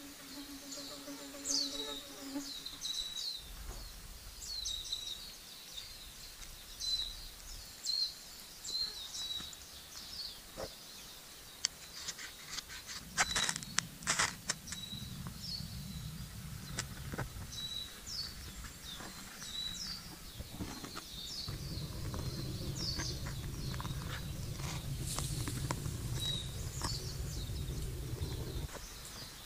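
Small birds chirping on and off, short high calls coming every second or so. A fly buzzes briefly at the start, a few sharp knocks come about halfway through, and a low rumbling noise runs through much of the second half.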